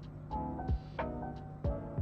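Background music with a steady beat: a deep kick drum about once a second under short melodic notes and light ticks.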